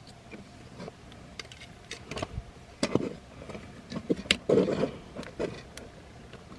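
Plastic parts of a transforming action figure being handled: a scatter of small sharp clicks as the arm and finger joints are moved, with a short scraping rustle about four and a half seconds in.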